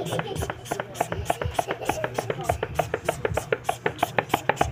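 A fast, even run of sharp knocks, about six a second, that stops suddenly at the end.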